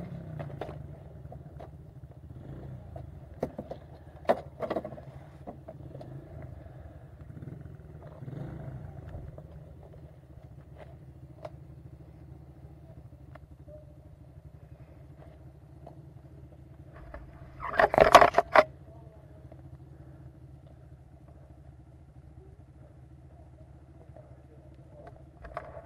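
Yamaha YZ250F dirt bike's single-cylinder four-stroke engine idling steadily. A few sharp knocks come in the first seconds, and a short loud burst comes about two-thirds of the way through.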